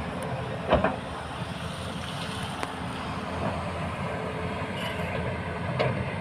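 Excavator and dump truck diesels running steadily, with a loud sudden clank about a second in and a smaller one near the end.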